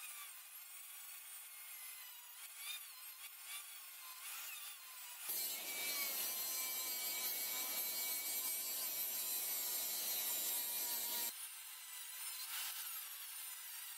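Dremel rotary tool with a small cutting disc whining, its pitch wavering as it cuts through a surfboard's fiberglass skin, with a vacuum running alongside to catch the dust. A louder, steady rushing noise takes over for about six seconds in the middle.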